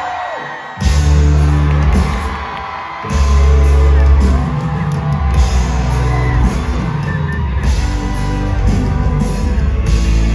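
Live rock band playing loud, with the full band crashing in about a second in, dropping back, then coming in hard again around three seconds. Crowd whoops rise over the music.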